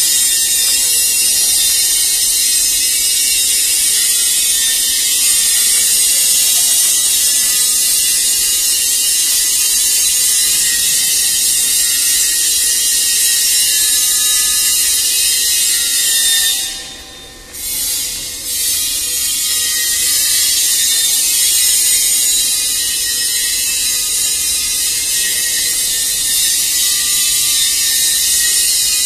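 Spray dryer running: a steady, loud hiss with a faint high whine. The hiss drops away briefly twice, a little past halfway.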